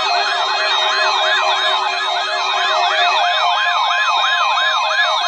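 Weather radio receiver's electronic alert siren sounding for a NOAA Weather Radio Required Weekly Test: a loud warbling tone that sweeps up and down about three times a second.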